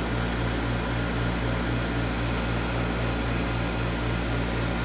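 Heat gun blowing steadily: a constant whirring hum with a faint pulse about four times a second. It is warming a saxophone key cup to melt the shellac under the pad so the pad seats.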